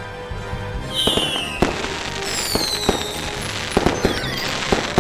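Cartoon fireworks sound effects: two whistling rockets falling in pitch, several sharp bangs and crackling, over background music.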